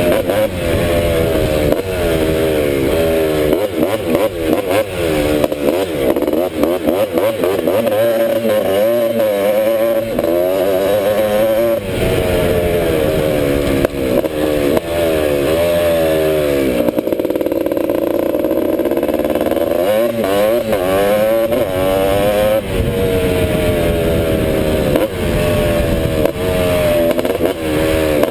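Honda ATC250R three-wheeler's two-stroke engine under way, its pitch climbing repeatedly and dropping back as the throttle is worked through the gears, with a steadier held note about two-thirds of the way through.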